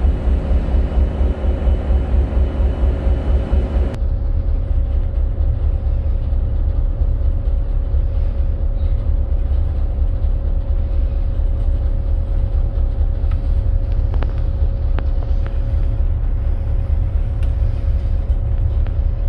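Freshwater class ferry under way: a deep, steady rumble with a constant hum from the vessel's machinery. About four seconds in, the higher hiss drops away abruptly, leaving the rumble and hum.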